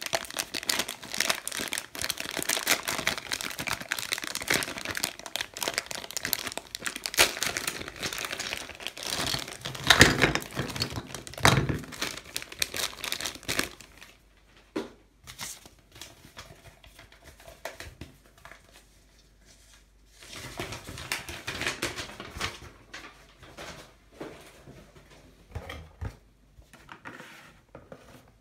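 Clear plastic packaging bag crinkling and crackling as hands tear it open and pull out the plastic Play-Doh moulds inside. It is dense and loudest in the first half, with the loudest crackles about ten to twelve seconds in, then thins to sparser rustles and light clicks.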